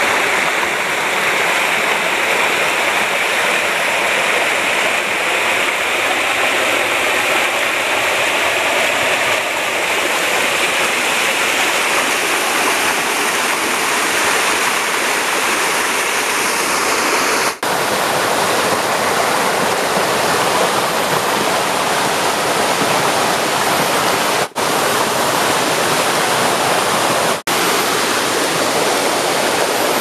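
Rushing water of a small rocky waterfall and stream, tumbling over boulders in a steady, loud rush. It cuts out for a split second three times in the second half.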